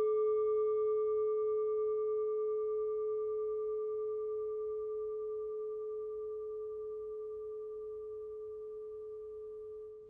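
A struck singing bowl ringing out as one long, steady tone with fainter higher overtones, slowly fading away.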